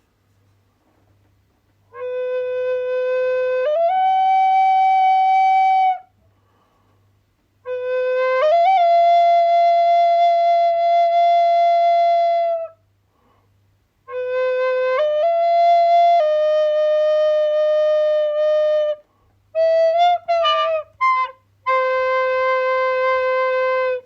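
Solo flute playing slow phrases of long held notes, each phrase starting low and stepping or gliding up to a higher note that it sustains, with short pauses between phrases. Near the end come a few short quick notes, then one more long low note.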